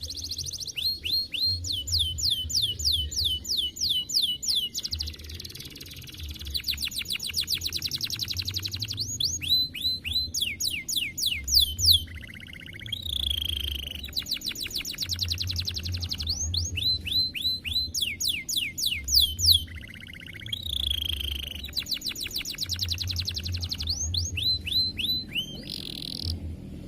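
Domestic canary singing a long, continuous song: fast trills of rapidly repeated high notes, each sliding downward, switching to a new trill every few seconds.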